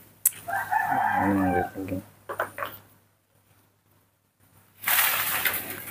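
An animal call of about a second and a half, wavering in pitch, just after a sharp click at the start, followed by a few short, fainter sounds; about five seconds in comes a short burst of rustling noise.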